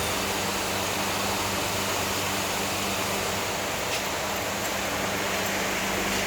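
Steady hiss with a constant low mechanical hum, like a running fan or blower, and a faint tick about four seconds in.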